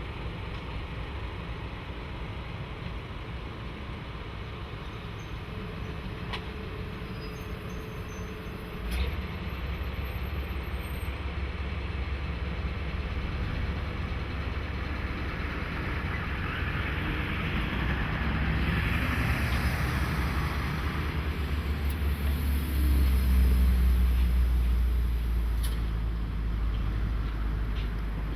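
A JNR DE10 diesel-hydraulic locomotive running, its deep engine rumble stepping up about a third of the way in and loudest near the end. A rushing noise swells and fades in the middle.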